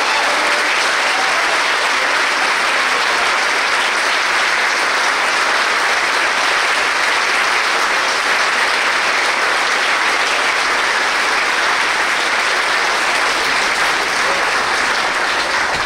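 A large audience applauding: dense, steady clapping from a full auditorium.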